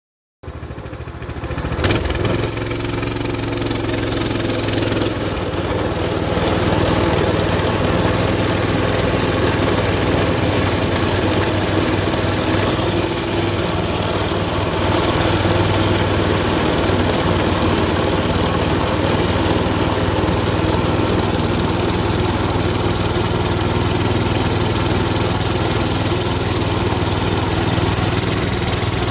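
A small engine running steadily at a low, even speed, with a sharp spike about two seconds in.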